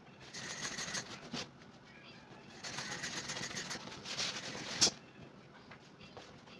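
Manual hand air pump worked in long strokes, each a rush of air, forcing air into the valve of an inflatable kids' paddling pool ring. There are about three strokes, with a sharp click near the end of the last one, and then a quieter pause.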